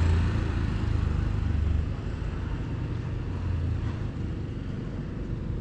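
Low, steady rumble of a motor vehicle running, louder for about the first two seconds and then easing off.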